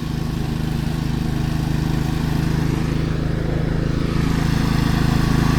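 Cox Stockman ride-on mower's engine running steadily with an even hum, getting slightly louder. The mower is new and still running in and loosening up.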